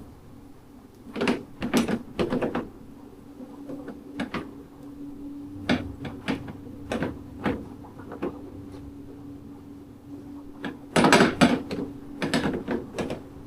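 Irregular clicks, knocks and clatter of motorcycle headlight parts and a mounting bracket being handled and fitted, busiest near the start and again near the end, over a steady low hum.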